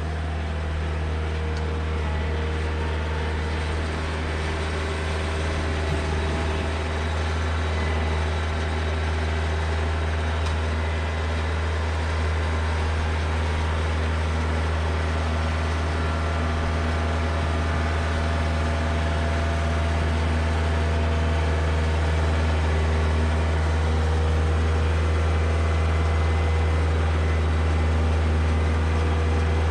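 Diesel tractor engine running steadily with a deep, even hum, growing slightly louder over the stretch.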